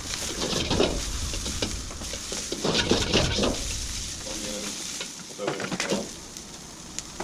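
Onions, shallots and garlic sizzling in hot oil in a wok, stirred and tossed with a spatula that scrapes and clinks against the wok over and over. The sizzling eases a little near the end.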